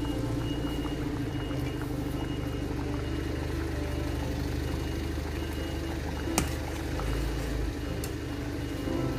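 Chicken qeema curry simmering and bubbling in a stainless steel pot over a steady low hum, with one sharp click about six seconds in.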